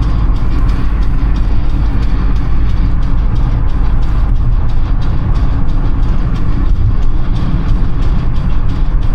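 Steady, loud rumble of tyres on the road and the running engine, heard inside a car cruising at speed.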